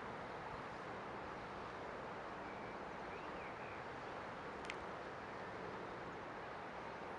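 Steady outdoor ambience: an even, continuous hiss and rumble, with a few faint chirps about three seconds in and a single sharp click near five seconds.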